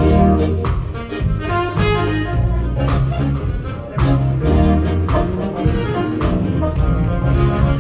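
Live band playing a jazz number: drum kit hits, a bass line and keyboard chords, with a horn line above.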